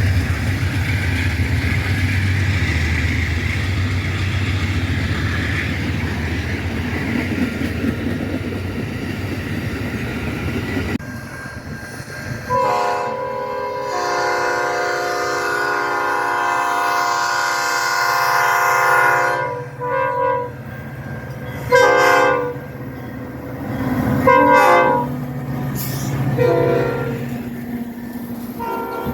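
A train rumbling past, then a multi-chime locomotive horn sounding one long blast of several tones at once, followed by four short blasts.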